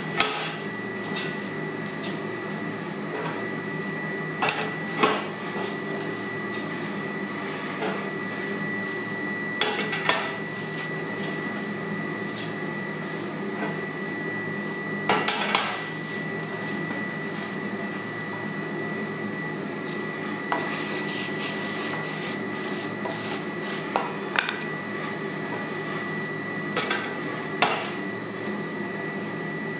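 Steel being handled and knocked about at a forge: irregular metal clanks and clinks, about ten in all, over a steady machine drone with a constant whistle-like tone.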